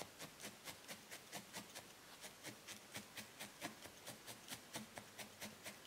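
Multi-needle felting tool stabbing repeatedly into wool, faint soft clicks at a steady pace of about four to five a second, as the wool of the chin is worked in and firmed.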